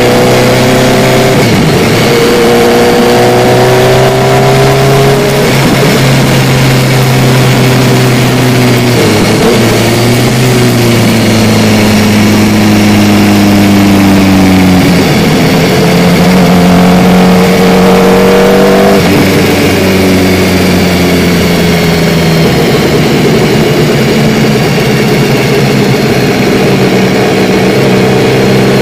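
Sport motorcycle engine heard from on board, running at mid revs under throttle with wind rushing past. Its pitch swells and drops several times as the rider rolls the throttle on and off and changes gear through the bends.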